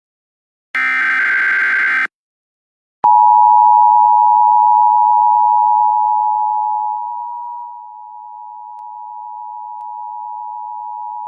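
Emergency Alert System broadcast alert: a short burst of screeching digital header tones about a second in, then, after a brief gap, the steady two-tone attention signal starts about three seconds in. The attention signal is loud at first and grows quieter around the middle.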